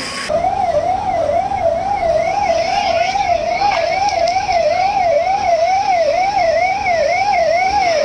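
Emergency vehicle siren sounding in a fast up-and-down wail, its pitch rising and falling about two to three times a second. It starts abruptly just after the opening and keeps going without a break.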